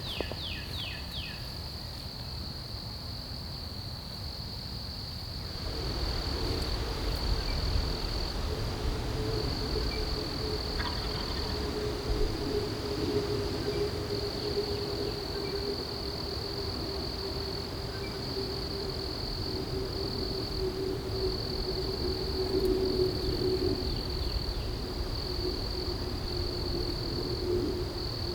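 A steady high-pitched insect trill, with a low distant engine drone coming in about six seconds in and running on under it. A few quick falling chirps sound right at the start.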